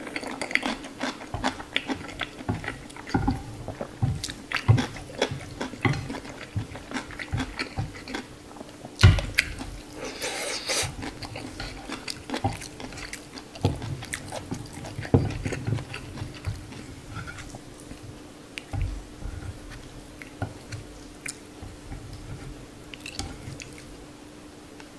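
Close-miked mouth sounds of eating instant noodles: chewing and slurping, with chopsticks and a metal spoon scraping and clicking on the plate. A low thump comes about nine seconds in, and a faint steady hum runs underneath.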